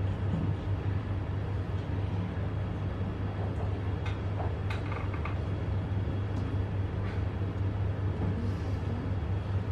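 Steady low hum of room noise with a few faint clicks about four to five seconds in.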